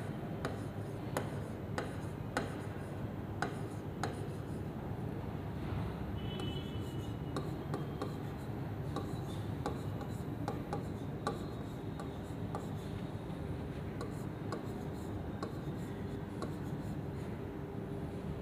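Stylus tapping and scraping on the glass of an interactive display as someone writes by hand, with irregular sharp clicks at each stroke, over a steady low room hum.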